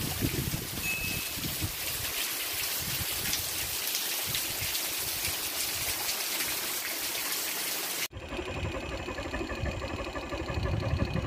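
Rain pouring down steadily, a dense even hiss. About eight seconds in it cuts abruptly to a different recording: fainter rain with a steady low hum and rumble.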